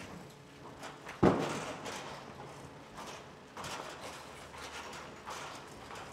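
A loud knock about a second in, then lighter, scattered knocks and rustling: footsteps on a stage as dancers in regalia walk off it.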